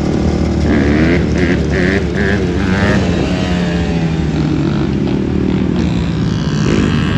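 Several dirt bike engines running together on a group ride: a steady engine drone with other engines' revs rising and falling over it in the first few seconds.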